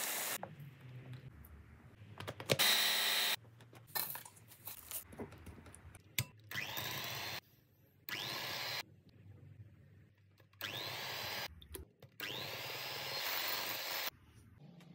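Electric kitchen appliances running in short bursts: a food chopper pulsing biscuits into crumbs near the start, then an electric hand mixer beating cream cheese in four bursts, each starting with a rising motor whine as the beaters spin up.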